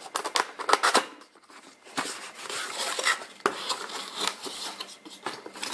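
Cardboard product box being handled and opened: flaps pulled open, with scraping, rustling and small clicks of cardboard, and a brief lull about a second in.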